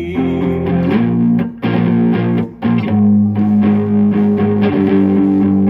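Guitar chords strummed and ringing with no drums, changing chord every second or so, with two brief breaks between them.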